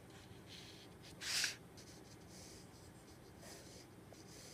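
Graphite pencil drawing a line on paper: one short stroke about a second in, followed by a few fainter, lighter strokes.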